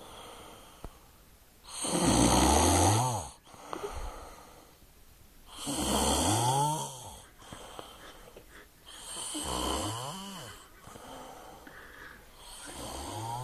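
Loud snoring: four long snores about every four seconds, each rising and then falling in pitch, with quieter breathing between. The first snore is the loudest.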